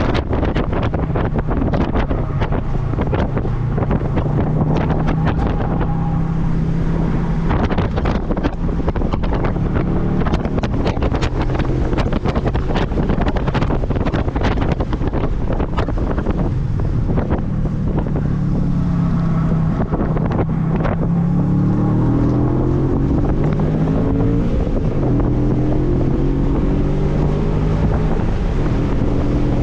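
Heavy wind buffeting on the microphone over the Audi B7 RS4's 4.2-litre V8 under hard track driving. The engine note climbs in pitch several times in the second half as the car accelerates.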